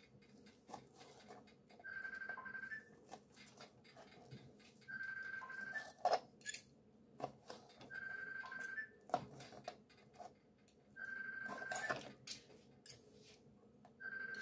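Knife and fork cutting cooked pork on a plastic cutting board, with faint scrapes and a few sharp clicks. Throughout, an electronic tone about a second long repeats every three seconds, each one ending in a small step up in pitch, like a phone ringing.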